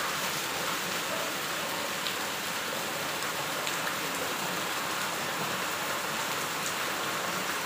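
Heavy rain falling steadily on a wet concrete lane, an even hiss with a few sharper drop hits here and there.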